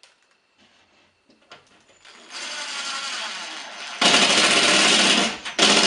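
Power drill driving a screw to fix wood backing behind a drywall hole: the motor runs from a little over two seconds in, gets louder at about four seconds as the screw bites, stops briefly and ends with a short final burst.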